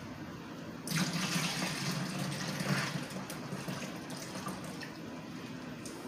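A pink milk-and-cream ice cream mixture poured from a plastic tub into a zip-top plastic bag. The pouring starts about a second in, is heaviest for the next two seconds, then thins out as the tub empties.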